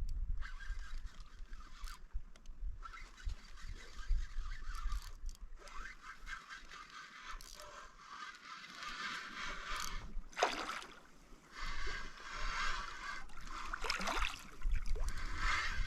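Spinning reel being cranked in spurts while an asp is played and reeled in, a rough whirring that comes and goes several times. Under it there is low rumble from wind and handling.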